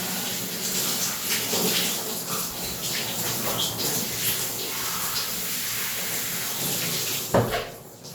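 Shower spray running steadily over a person washing, with irregular splashes. About seven seconds in there is a single knock, and the water then stops.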